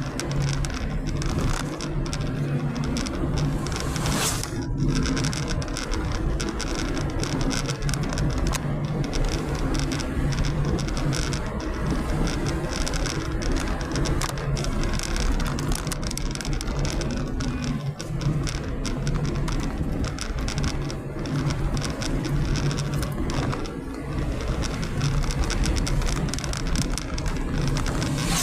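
Car cabin noise while driving on a highway: steady tyre and road rumble with a low engine hum.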